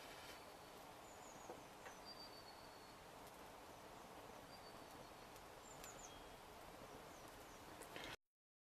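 Near silence: faint hiss of a burning matchstick tower with a few soft crackles, and several faint high bird chirps. The sound cuts out completely near the end.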